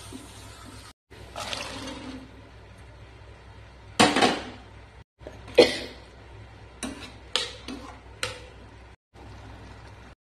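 Slotted steel spoon stirring and scraping pea masala in a stainless steel pan, with several sharp clinks and knocks of the spoon against the pan, two of them loud about four and five and a half seconds in, amid wet splashing of the gravy.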